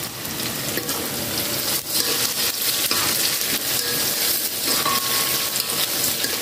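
Cubes of tofu deep-frying in hot oil in a wok, sizzling steadily, stirred with a spatula; a little louder from about two seconds in.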